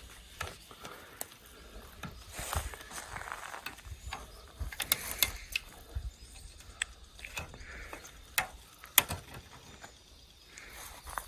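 Irregular sharp clicks and knocks, like hand-tool work, with the loudest knock about nine seconds in.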